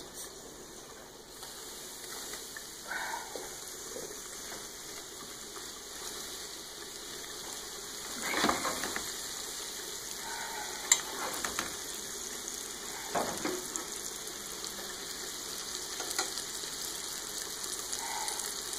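Breaded squid rings deep-frying in a pan of hot oil, a steady sizzle, with a few sharp clinks and scrapes of a utensil stirring them in the pan.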